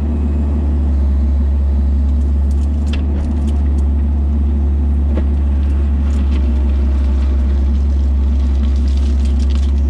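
A vehicle engine running steadily with a deep, constant rumble, with a few faint ticks and rattles over it.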